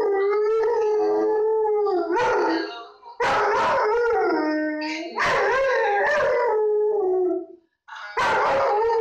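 A dog howling along to a song: a run of long, wavering howls with short breaks between, most sliding down in pitch as they end.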